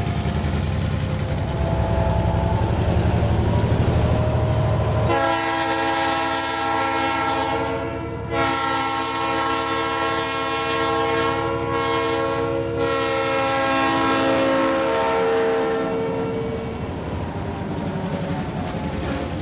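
Freight train cars rolling past with wheel rumble and clickety-clack, then a diesel locomotive's multi-note air horn sounding the grade-crossing signal: two long blasts, a short one and a final long blast, as the train approaches a level crossing. The locomotive and hopper cars then rumble by.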